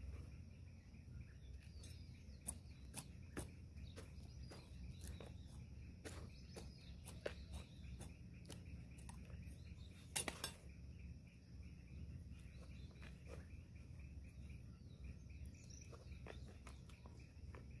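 Hands and a small hand tool working potting soil in a plastic pot: scattered light scrapes and clicks, the loudest about ten seconds in, over a faint steady low background noise.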